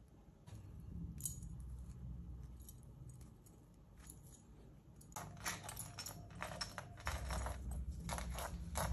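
Handling noise of hands unrolling gauze bandage and wrapping it around a hand: faint rustling with a few scattered clicks, then a dense run of small clicks and jingles over the last four seconds.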